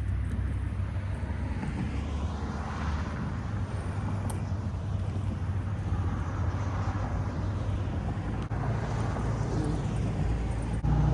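Road traffic: several cars going by one after another, each swelling and fading, over a steady low rumble.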